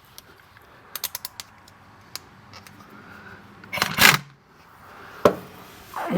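A few light clicks, then a short burst from a pneumatic air impact wrench run in reverse to loosen a mower blade bolt, followed by one sharp click.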